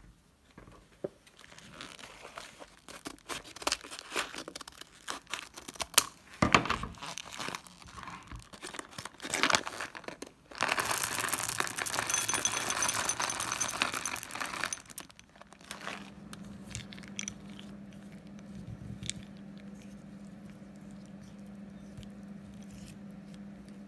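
A plastic-lined packet crinkling and tearing open, then a stream of chocolate buttons rattling into a ceramic bowl for about four seconds. After that a steady low hum carries on to the end.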